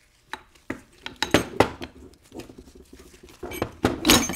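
Steel gearbox parts clinking and clanking as the second-speed gear and synchronizer ring are worked off a T5 five-speed's mainshaft by hand: a string of sharp metal knocks, the loudest just before the end with a short high ring.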